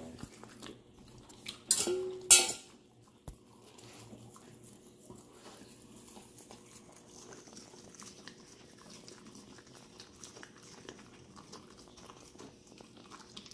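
American Bully puppy chewing and licking a soft scrambled-egg patty off the floor, a quiet wet smacking throughout. Two louder sharp knocks come about half a second apart near two seconds in.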